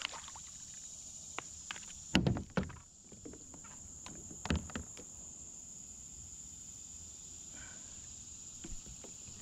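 Hollow knocks and clunks of handling on a plastic kayak, a cluster of loud ones about two seconds in and another about four and a half seconds in, with lighter clicks in between. Insects keep up a steady high drone underneath.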